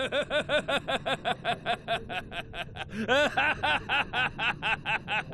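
Anime villain Donquixote Doflamingo's long, rapid chuckling laugh, a quick even run of short 'fu' syllables at about five or six a second, with one louder syllable that rises and falls about three seconds in.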